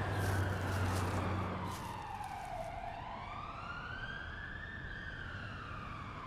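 A siren wailing in one slow cycle: falling in pitch, climbing again about halfway through and falling near the end. A low steady hum under it fades out about two seconds in.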